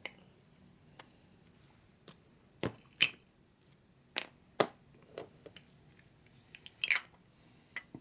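Irregular light metallic clicks and clinks as a motorcycle brake caliper, its new brake pads and a small retaining pin are handled and fitted together by hand. A few sharper knocks stand out, about three seconds in and again near seven seconds.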